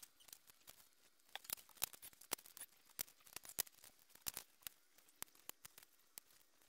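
Thin hookup wire and hand tools being handled on a wooden workbench: faint, irregular light clicks and ticks, with a few sharper snips from side cutters.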